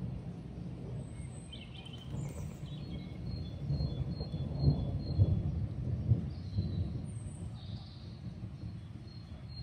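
Thunder rolling, a low rumble that swells about halfway through and then fades. Faint high chirps and a regular ticking a couple of times a second sound above it.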